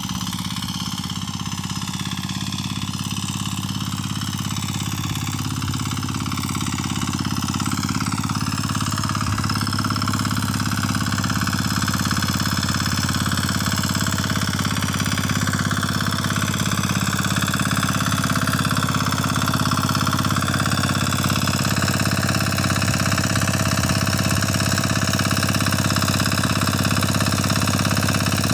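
Kama 9 hp diesel engine of a walk-behind power weeder running steadily under load while its rotavator tills wet paddy soil. It grows gradually louder as the machine comes closer.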